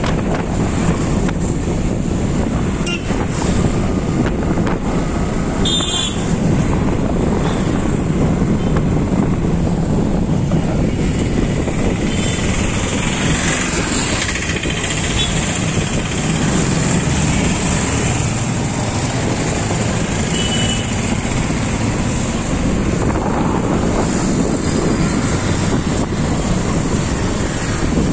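Onboard sound of a motorcycle riding through city traffic: its engine running steadily with wind rushing over the microphone and other road vehicles around it. A couple of short high beeps cut through, about six seconds in and again near twenty seconds.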